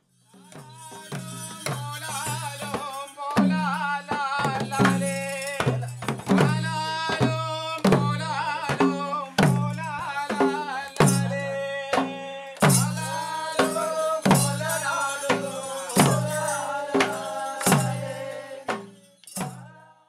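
Song with voices singing over a steady drum beat, struck a little faster than once a second; the music swells in over the first few seconds and fades out near the end.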